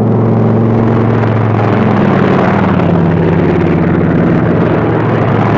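P-47 Thunderbolt fighters' radial piston engines running at high power on takeoff: a loud, steady drone whose pitch dips slightly about two seconds in.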